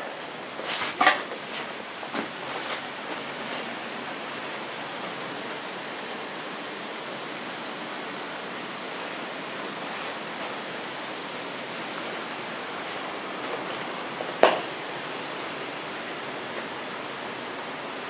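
A steady hiss throughout, with a few light knocks in the first three seconds and one sharp knock about fourteen seconds in.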